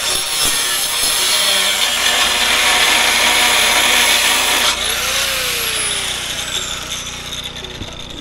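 Cordless angle grinder cutting into the metal body of an old Greyhound bus. About halfway through it is switched off, and the disc winds down with a falling whine that fades away.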